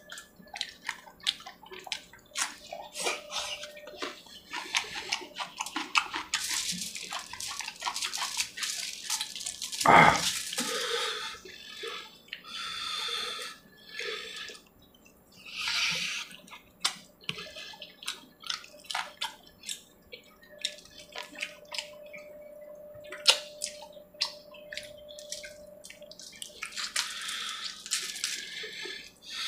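A man eating chicken curry with his hands, close to the microphone: chewing with many short mouth clicks and smacks, and a few longer slurps. There is one brief louder sound about ten seconds in.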